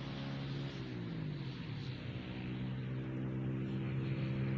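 A vehicle engine running. Its pitch slides down about a second in and then holds steady, getting slightly louder toward the end.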